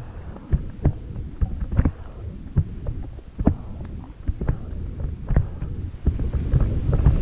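Footsteps of a person walking along a dirt trail through brush, soft uneven thuds about two a second, over a low rumble of wind and handling on the microphone.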